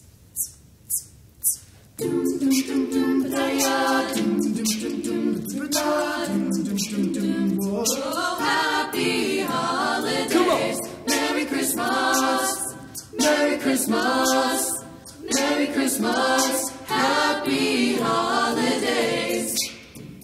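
A small group of voices singing a cappella in harmony. It starts about two seconds in, after four sharp clicks about half a second apart.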